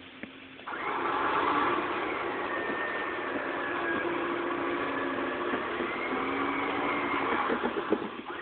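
A small off-road 4x4's engine goes from a low idle to revving hard under a second in, held at high revs for about seven seconds as the vehicle drives out of deep mud, its pitch wavering with the load.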